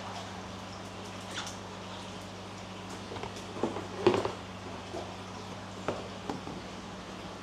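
Scattered short splashes and knocks from koi being netted out of a holding tank, loudest just after four seconds in, over a steady low hum.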